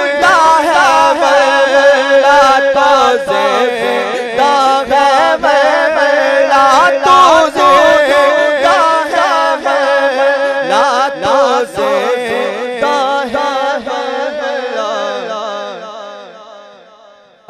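A male naat reciter singing a long, wordless, wavering melodic line over a steady held drone. The sound fades out over the last few seconds.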